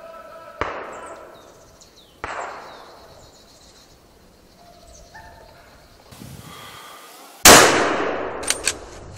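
Rifle shots in a driven wild boar hunt. Two fainter shots, echoing through the woods, come about a second and a half apart. About five seconds later comes one very loud nearby rifle shot, whose echo dies away slowly, followed by two sharp clicks.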